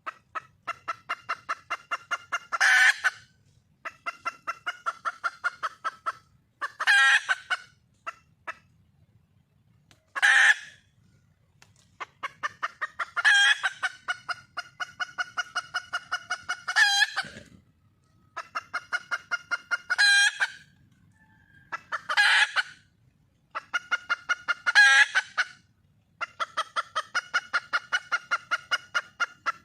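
Red junglefowl hen cackling: runs of quick clucks, each building to one louder drawn-out squawk, repeated about eight times. It is the wild hen's call to a male.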